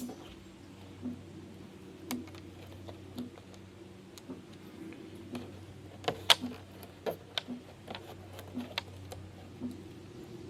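Scattered light clicks and taps of zip ties and a ribbed plastic coupler being worked against a culvert pipe, with a cluster of sharper clicks about six to seven seconds in.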